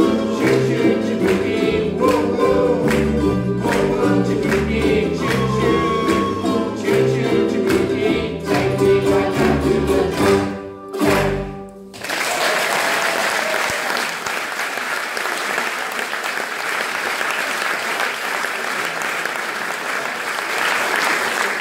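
Ukulele band strumming and singing together, ending on a final chord about halfway through, then audience applause.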